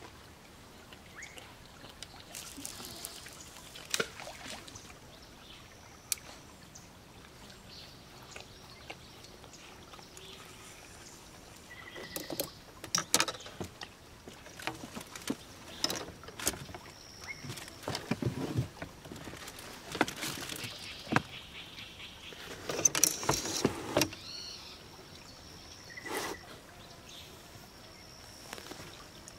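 Fishing gear handled in a small boat: a spinning reel being wound in, then scattered clicks, knocks and rattles of tackle and rods against the boat, in louder clusters in the second half. A faint high steady tone comes and goes and holds near the end.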